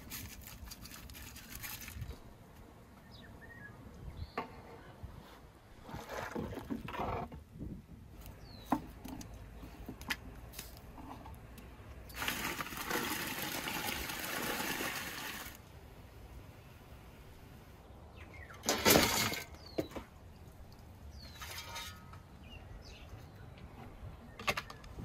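Water in a large aluminium stockpot of crawfish-boil broth sloshing and pouring in several bursts, the longest lasting about three seconds, with a loud short burst of noise near the end. Birds chirp now and then in the background.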